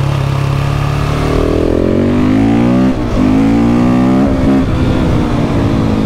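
KTM 690 SMC R's single-cylinder engine pulling hard through the gears: the revs climb for about two seconds, drop sharply at an upshift about three seconds in, climb again, and drop at a second upshift a little after four seconds.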